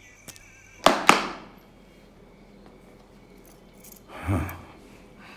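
Two sharp clinks about a quarter second apart, each ringing briefly, then a short muffled rustle with a low thump about four seconds in.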